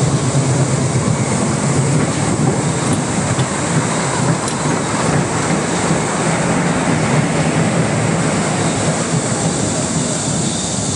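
Dragon roller coaster train running along its track: a loud, steady rolling rumble.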